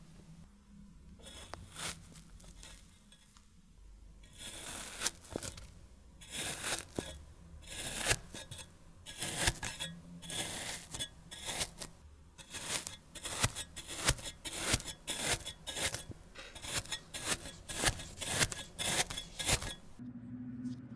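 A blade slicing through kinetic sand, a crisp crumbly crunch with each stroke. The strokes come in a long series, about one to two a second, after a quieter first few seconds.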